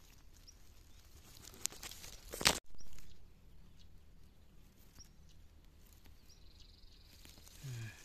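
Faint outdoor background with rustling of grass close to the microphone, loudest in a brief scrape about two and a half seconds in.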